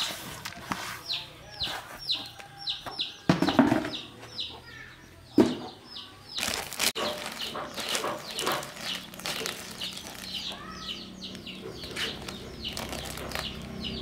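Chickens cheeping over and over, short falling high calls several a second, with a few loud knocks and rustles about three and a half, five and a half and seven seconds in.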